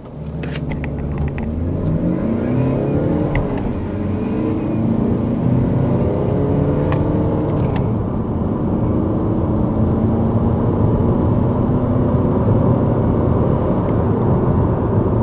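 Car engine accelerating hard through the gears, heard from inside the cabin: its pitch climbs, drops at each upshift and climbs again. A few sharp clicks sound in the first couple of seconds.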